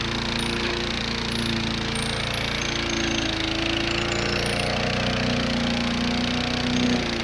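Briggs & Stratton 125cc lawnmower engine running at full throttle with its throttle tied open and its cooling fan shroud removed. A steady, rapid firing whose pitch wavers slightly.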